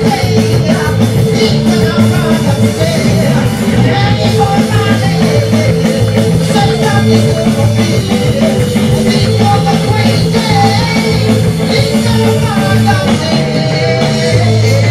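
Live reggae band playing through a PA: electric guitars, keyboard, bass and drums, with a vocalist singing over a steady repeating bass line.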